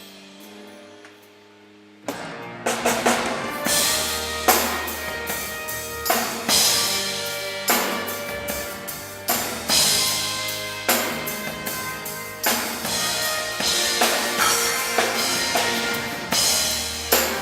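Live band with drum kit, bass and other instruments playing a song over the PA during a soundcheck. The music comes in about two seconds in after a near-quiet fade, with heavy drum accents roughly every second and a half.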